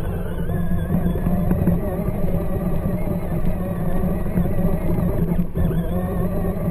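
John Deere Ground Force battery-powered ride-on toy tractor driving, its electric drive motors and gearbox whining steadily over a low hum, the pitch wavering slightly as it goes.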